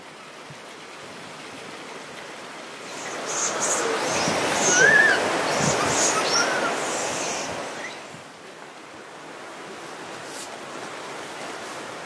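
A steady rush of water, swelling from about three seconds in and easing off near eight seconds. In the middle come two short rising-and-falling calls from a Japanese macaque.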